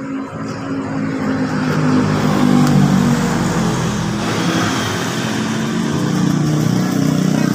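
A motor vehicle engine running, its level swelling, easing off and building again.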